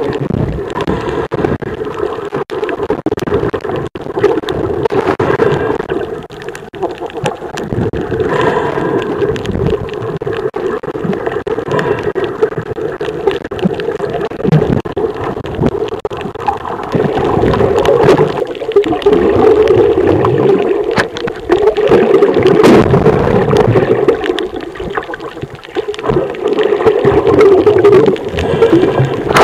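Muffled underwater noise picked up by a camera held underwater over a coral reef: a continuous rushing wash with many faint scattered clicks, swelling louder about halfway through.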